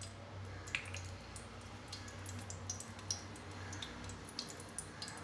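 Ghee heating and starting to melt in a stainless steel pan on the stove, giving scattered faint ticks and crackles over a steady low hum.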